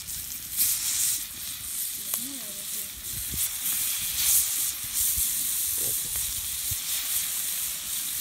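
Marinated fish pieces shallow-frying in hot oil on a large flat metal griddle pan, a steady sizzle that flares up louder a couple of times as more pieces are laid in.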